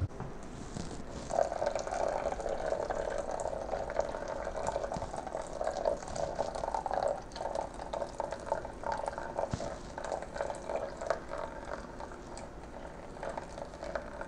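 Water poured in a thin stream from a glass measuring cup onto wet coarse coffee grounds in a Toddy cold brew container. It starts about a second in as a steady trickle and becomes a broken, spattering trickle in the second half.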